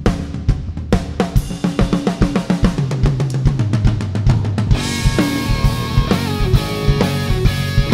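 Blues-rock power trio playing live: a drum kit keeps an even beat with bass guitar underneath. About five seconds in, an electric guitar comes in with bent, wavering notes.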